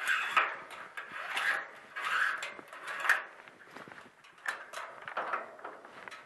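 Hands working the metal trolley arm and release cable of a garage door opener: a series of short scrapes and rubs with some clicks, loudest in the first three seconds and then fainter.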